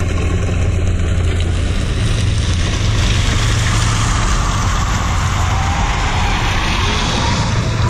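A Honda Insight hybrid driving up and past on asphalt with plastic lunch trays under its rear tyres. A broad hiss swells as it nears and is loudest as it passes, with a faint rising engine note near the end. A steady low rumble of wind on the microphone runs underneath.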